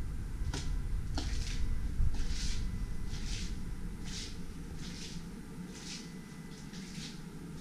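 Footsteps scuffing across a tiled floor at an even walking pace, a little more than one step a second, over a low rumble from the hand-held camera. Two sharp clicks come in the first second and a half.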